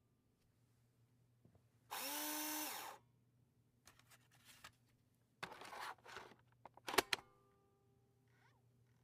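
A small motor, like a power drill, spins up with a rising whine, runs steadily for about a second and stops. A noisy rasping burst follows, then two sharp clicks near the end.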